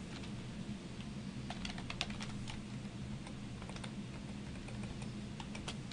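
Computer keyboard typing: scattered keystrokes, with a quick run of them about two seconds in and another near the end, over a faint steady low hum.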